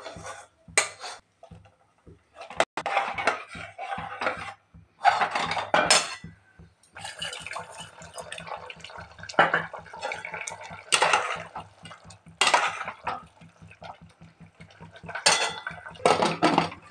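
Metal utensils and a steel bowl clinking and scraping against an aluminium pressure cooker as spice paste, fried paneer pieces and boiled potatoes are mixed in the curry. The clatters and scrapes come irregularly, in bunches.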